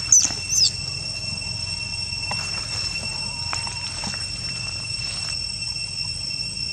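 Steady high-pitched insect drone, with two short high squeals about half a second apart near the start, from a young macaque.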